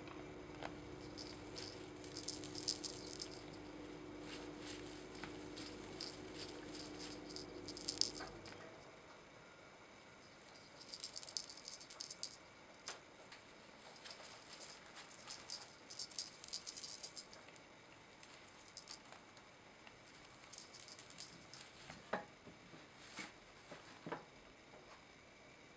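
A cat teaser wand with feathers and metallic tinsel strands is shaken in irregular spells, giving bursts of high, bright rattling and jingling. A few soft clicks come near the end.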